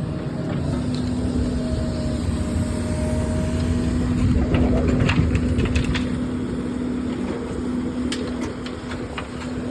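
Excavator running while digging: a steady engine rumble and hum, with crunching and sharp clicks from about halfway through as the bucket works the ground.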